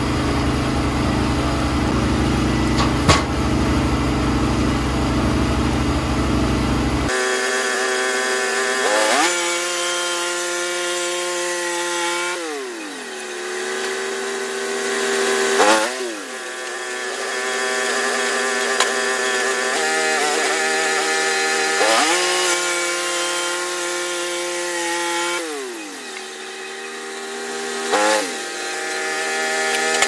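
Portable band sawmill's gas engine running and sawing through a red pine log. The engine speeds up and slows down several times. About seven seconds in, the sound changes abruptly from a deeper, fuller engine noise to a higher one.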